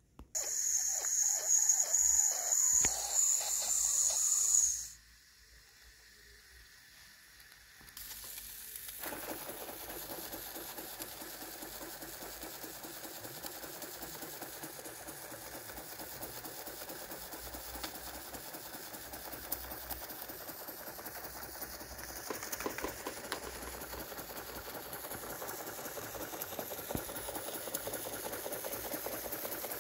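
Steam hissing loudly from an antique Carette model 147 toy steam engine for about four seconds, then after a short lull the engine runs at a steady, fast mechanical beat with hissing exhaust steam.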